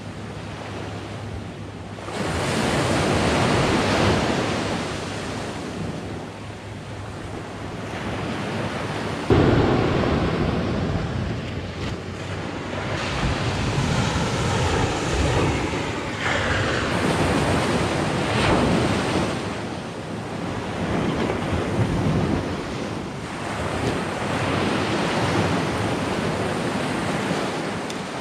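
Sea surf breaking on the shore, swelling and falling every few seconds, with wind buffeting the microphone.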